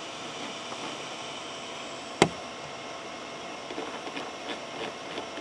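Steady whir of a small fan with one sharp click about two seconds in and a few faint ticks near the end.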